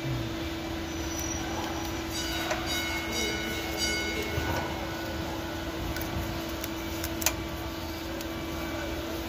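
Electrical tape being pulled off the roll and wrapped around spliced wires, giving short high-pitched peeling squeaks about two to four seconds in. A steady hum runs underneath, and there is a sharp click about seven seconds in.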